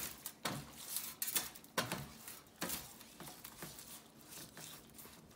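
Latex-gloved hands rubbing an oily herb marinade into a piece of beef in a stainless steel roasting pan. The result is irregular wet slaps and smears of the meat against the pan, stronger for the first two and a half seconds, then softer rubbing.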